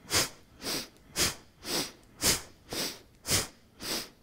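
A woman's forceful rhythmic yoga breathing, quick breaths in and out at about two a second, each breath timed to a twist of the torso, inhaling turning left and exhaling turning right.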